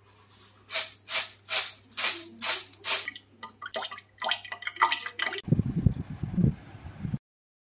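Crisp fried potato fries shaken in a wire-mesh strainer, rattling and rustling in a run of shakes about two to three a second. The shakes grow lighter, then give way to a loud low rumble that cuts off suddenly near the end.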